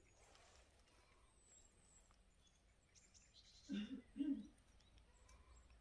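Quiet rural outdoor ambience with faint bird chirps. About two-thirds of the way in come two short, low voice sounds about half a second apart, close to the microphone.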